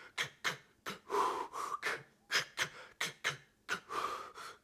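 A man making quick inhaled 'ka' sounds, a K-click with the breath drawn in, in a chugging rhythm of short sharp strokes broken twice by a longer drawn-in breath. This is the inhaled tongue articulation used on a harmonica draw note for a blues shuffle, done here without the harmonica.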